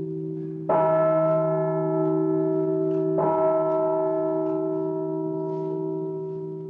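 A bell struck twice, about two and a half seconds apart. Each stroke rings on and fades slowly over the steady low hum of the bell still sounding from earlier strokes.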